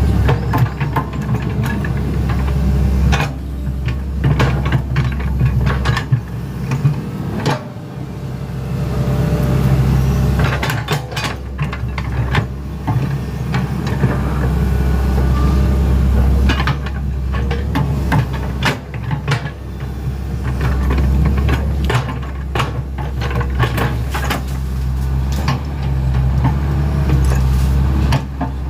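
Hitachi Zaxis 110 hydraulic excavator's diesel engine running steadily, with frequent knocks and clanks from the machine working.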